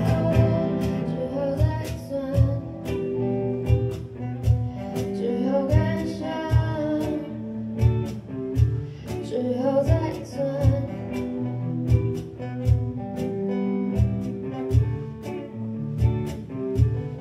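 Live band music: an electric guitar plays lead lines with bent, sliding notes over acoustic guitars and bass, with a steady beat underneath.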